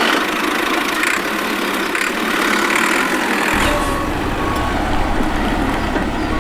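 A small engine running steadily; a deeper low rumble joins about three and a half seconds in.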